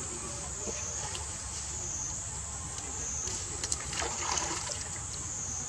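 Water splashing and lapping as macaques swim in a pool, with a brief burst of splashing about four seconds in, over a steady high-pitched insect drone.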